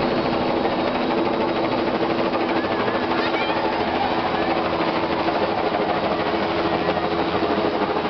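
Light helicopter with a two-blade main rotor flying low overhead: a steady, loud engine and a rapid beat from the rotor blades.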